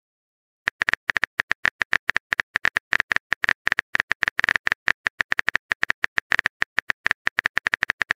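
Rapid keystroke clicks of a phone's on-screen keyboard sound effect, about eight to nine a second and a little uneven, as a message is typed out; they start just under a second in.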